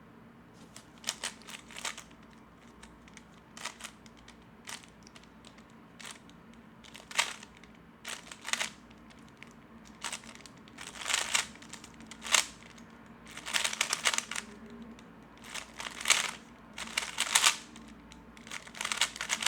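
Magnetic 3x3 speedcube being turned fast: clusters of clacking layer turns separated by short pauses, with sparser turning in the first few seconds and denser, quicker bursts later.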